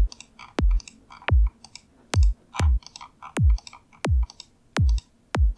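Psytrance kick drum samples previewed one after another, about eight of them, each a sharp click sweeping quickly down in pitch into a short low boom. Faint clicks sound between the kicks as the next sample is selected.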